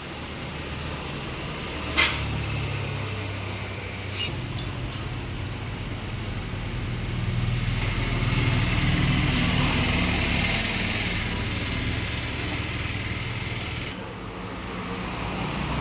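A motor vehicle's engine running with a steady low hum that grows louder through the middle and then fades, with two sharp metallic clinks about two and four seconds in.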